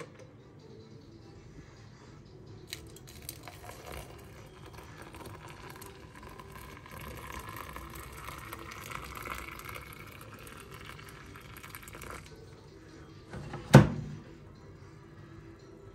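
Water running into a container, the pitch rising as it fills, stopping about twelve seconds in; then a single sharp knock.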